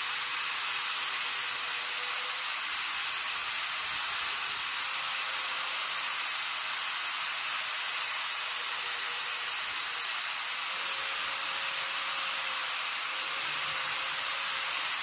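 Angle grinder with a metal blending disc running and grinding into the end of a hard, hollow plastic quarter round to shape a cope: a steady, loud, hissing grind. In the last few seconds the grind turns uneven, rising and falling as the disc is worked against the trim.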